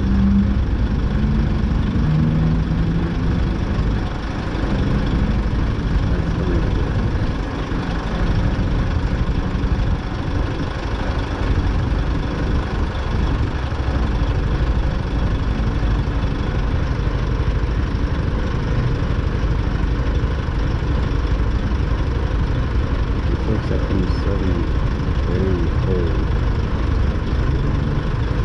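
Engines idling at a standstill in traffic: a 200cc motorcycle's single-cylinder engine and the diesel of a truck right alongside, a steady low rumble.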